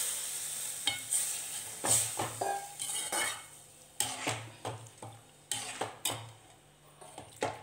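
Coconut milk poured into a hot metal pan with a short sizzle in the first second. Then a metal spoon stirs it, knocking and clinking against the pan's sides again and again.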